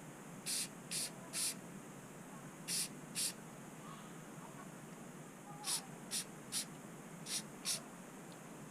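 Aerosol spray-paint can hissing in about ten short bursts, in loose groups of two or three, as a white base coat is sprayed onto a fishing reel.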